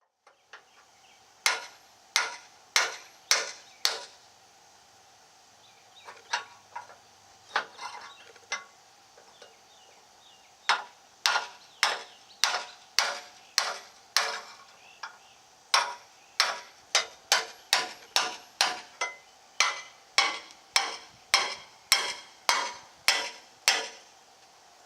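Hammer blows on metal in steady runs of strikes, a little under two a second, each with a short ring, with pauses of a few seconds between the runs.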